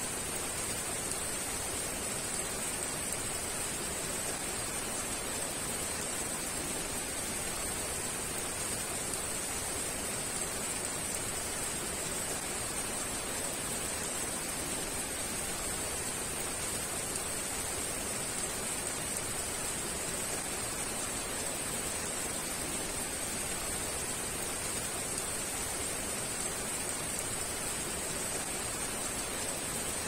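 Heavy rain falling steadily, an even, unbroken hiss with a brighter high edge to it.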